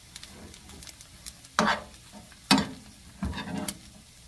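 A metal spoon stirs dry shredded squid in an oiled nonstick frying pan over low heat, with a soft sizzle and small clicks. Louder scrapes and knocks of the spoon against the pan come about one and a half seconds in, again about a second later, and once more near the end.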